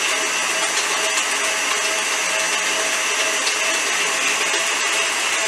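KitchenAid stand mixer running steadily, its beater mixing a thick pie-filling batter in the steel bowl, with a constant motor whine.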